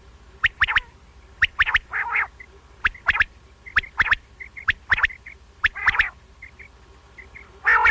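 Quail calling: sharp, quick notes in groups of two or three, repeated about once a second, with a few short raspy notes in between.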